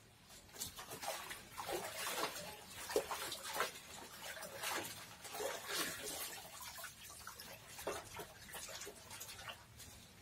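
Water splashing and sloshing in a bucket as Cymbidium orchid roots are swished through it to wash out the old potting medium, in irregular splashes.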